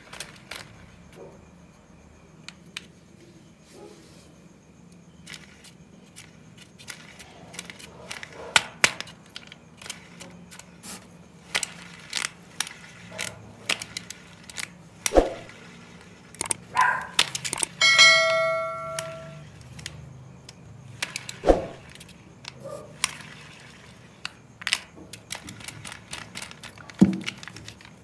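Scattered plastic clicks, taps and knocks as a pinwheel lollipop toy and its wrapper are handled. About two-thirds of the way through, a short steady ringing tone lasts about a second and a half and is the loudest sound.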